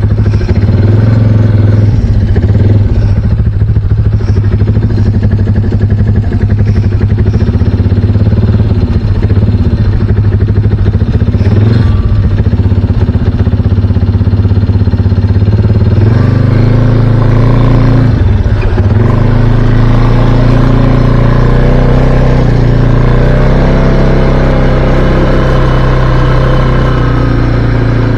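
Can-Am Outlander ATV engine running under throttle, its pitch rising and falling as the throttle is worked, with a brief dip in the engine note about two-thirds of the way through.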